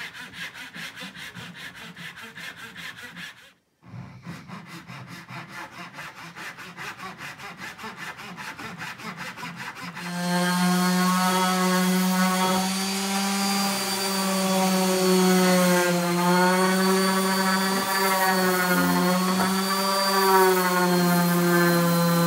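Handsaw cutting through a softwood trim board in rapid, even strokes, with a short pause about three and a half seconds in. About ten seconds in, a random orbital sander starts and runs with a steady, louder hum that wavers slightly in pitch as it is worked along the trim.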